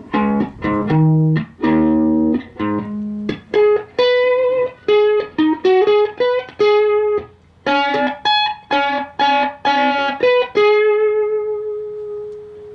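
Telecaster electric guitar with microcoil pickups played loud through a Richter 5E3 tube amp with 6K6 power tubes: a run of picked single notes and short phrases, ending on one long held note that slowly fades.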